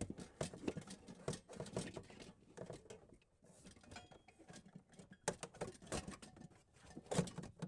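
Faint, scattered scraping, rustling and small clicks as an over-the-range microwave's power cord is unplugged and pulled back up through the cabinet above it.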